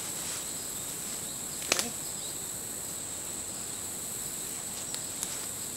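Steady high-pitched drone of insects singing in the creekside vegetation, with one sharp click or snap about two seconds in.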